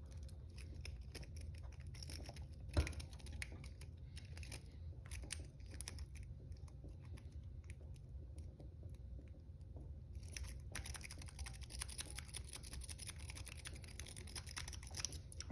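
A 4-peak lock-pick rake scraping and clicking over the pins in the keyway of a Master Lock No. 140 brass padlock. It makes a quiet run of fast ticks, with one sharper click about three seconds in and busier raking over the last five seconds.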